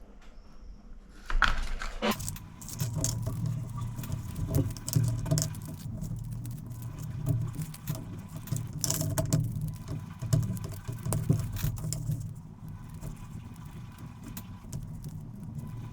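A keychain with stamped metal washer tokens and keys jingling and clinking as it is handled, in irregular small clicks.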